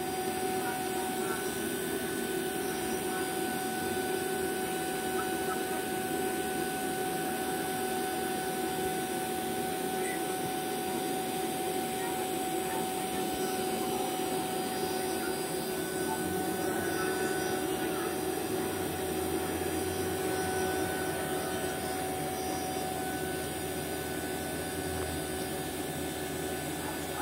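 Fieldpiece VP85 vacuum pump running steadily with an even hum, pulling a deep vacuum on an empty refrigerant recovery tank through two hoses.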